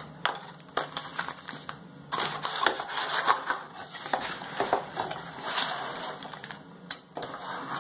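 Packaging and box contents being handled: rustling and crinkling with many small clicks and knocks, busiest from about two seconds in until near the end.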